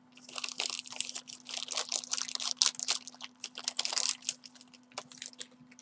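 Packaging crinkling and rustling as a phone's accessories are lifted out of their box. It is dense for about four seconds, then thins to scattered clicks, over a faint steady hum.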